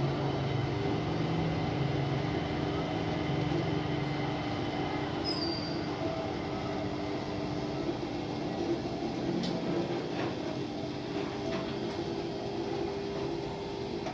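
Metal lathe running with its four-jaw chuck spinning, a steady mechanical drone with a hum of several steady tones.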